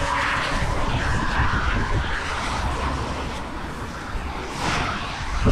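Road traffic going past on the bridge: a continuous rushing noise with a heavy low rumble, swelling in the first second.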